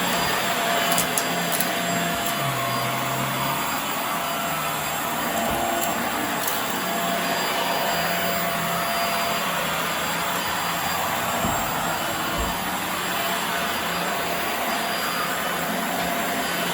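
Hoover Air Steerable upright vacuum cleaner running steadily while being pushed over carpet: a continuous motor whine and airflow noise, with a few faint clicks about a second in.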